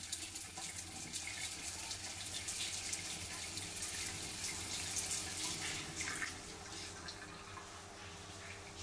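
Water from a tap running in a steady stream into a basin's drain, easing off slightly near the end.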